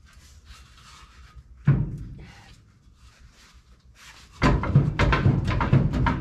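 Heavy metal clunks and knocks from a seized rear brake drum on a 1986 GMC Sierra 3500 dually being forced off by hand. The drum is held back by what is probably a ridge worn inside it, catching on the brake shoes. There is one sharp knock about two seconds in, then a rapid string of clunks from about four seconds in.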